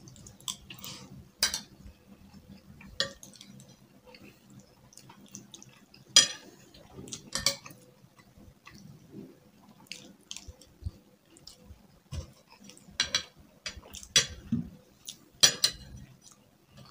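Metal forks clinking and scraping against ceramic plates, a dozen or so sharp clicks at irregular intervals, with quiet chewing in between.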